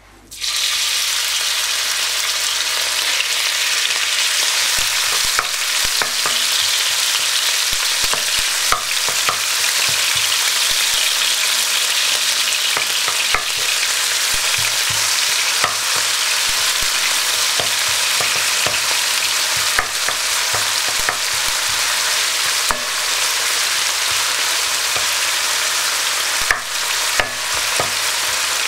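Strips of meat frying in hot sunflower oil in a wok: a steady sizzle that starts suddenly just after the beginning as the meat goes in. Scattered clicks and scrapes of a wooden spoon stirring the meat run through it.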